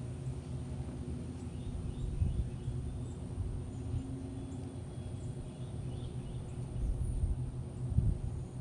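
Outdoor yard ambience: a steady low rumble with faint, short bird chirps scattered throughout, and a few dull low thumps near the end.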